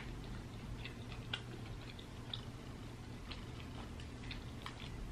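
Someone chewing food close to the microphone: scattered soft mouth clicks and smacks, irregular, roughly one a second, over a faint steady low hum.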